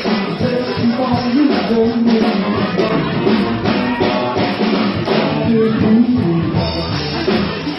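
Rock-style music with singing, drums and guitar.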